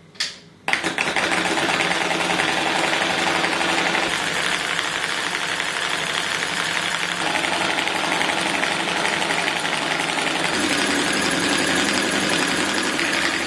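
Four-coil V-type solenoid engine with an acrylic frame and a steel flywheel, switched on just under a second in, then running with a fast, steady mechanical clatter from its plungers and crank.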